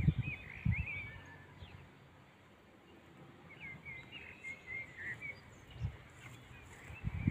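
Small birds chirping in short curved calls, over a quiet background. A few low thumps come near the start and again near the end.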